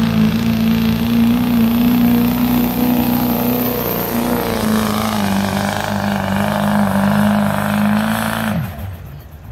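Diesel pickup truck engine held at full throttle while dragging a weight-transfer pulling sled, a loud steady note that sags slightly in pitch about halfway through under the growing load. Near the end the engine note drops away sharply as the throttle is released at the end of the pull.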